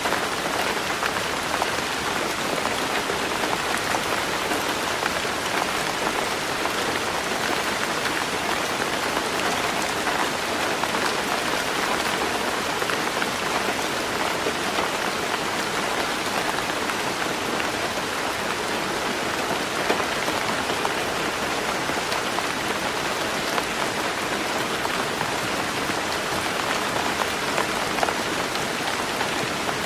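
Heavy rain drumming steadily on a roof, a dense even hiss of countless raindrops with no let-up.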